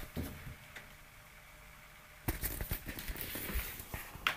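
Handling clicks and rubbing as a USB plug is pushed into a computer's USB port. The first two seconds or so are nearly quiet, then a run of small clicks begins, with a sharper click near the end.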